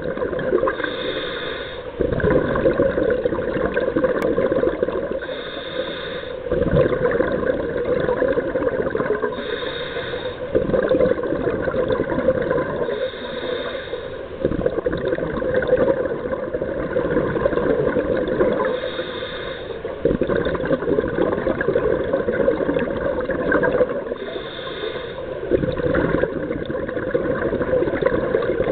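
Scuba diver breathing through a regulator underwater: a short hissing inhale about every four to five seconds, each followed by a longer rush of exhaled bubbles.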